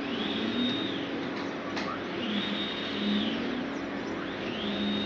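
Nema17 stepper motors driving the SCARA robot arm's joints through 50:1 gearboxes, whining in a high tone that rises, holds and falls as each move speeds up, cruises and slows down; three such moves a couple of seconds apart over a steady hum. A sharp click a little under two seconds in.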